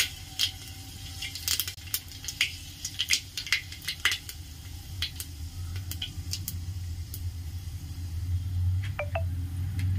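Panch phoron seeds crackling and popping in hot oil in an aluminium pressure cooker, the sharp irregular pops thickest in the first half. A steady low hum runs underneath.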